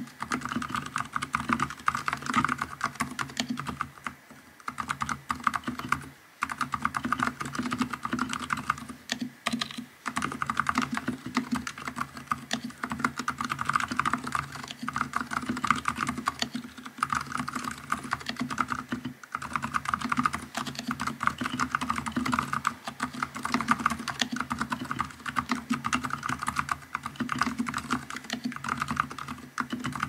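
Steady, fast typing on a NuPhy Halo75 mechanical keyboard fitted with TTC Silent Bluish White switches. The keystrokes are soft and muted, a bubbly sound ('보글보글'), with a few brief pauses in the typing.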